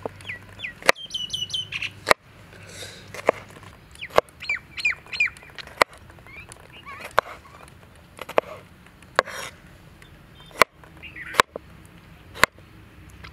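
A cleaver-style knife chopping tomatoes on a bamboo cutting board: sharp single chops roughly a second apart. A bird calls in quick runs of short chirping notes, mostly near the start and around four to five seconds in.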